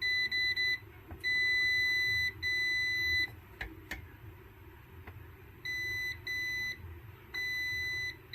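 Multimeter continuity beeper sounding a steady high beep in stretches of up to about a second, some broken into short stutters as the probes make and lose contact on the loose speaker connection, with a pause of about two seconds in the middle. The beep signals continuity across the speaker terminals.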